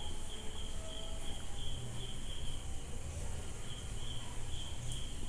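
High-pitched chirping in short, regular pulses, about two or three a second, over a low steady hum.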